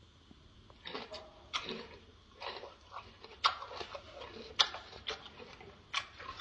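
Gorilla chewing raw red bell pepper: irregular wet crunches and mouth clicks, starting about a second in and coming about once or twice a second.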